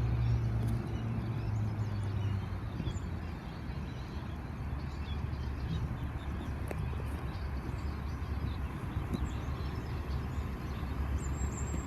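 Sydney Trains Oscar (H set) electric multiple unit running into the platform. A steady low hum eases off over the first two or three seconds above a continuous rumbling noise.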